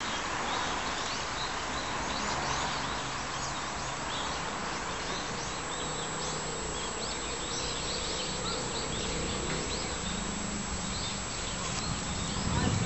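Outdoor natural ambience: many short, high chirps repeating irregularly over a steady hiss, with a faint low hum underneath.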